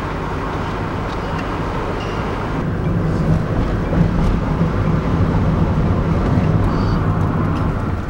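Car driving along a road, heard from inside the cabin: steady engine and tyre rumble.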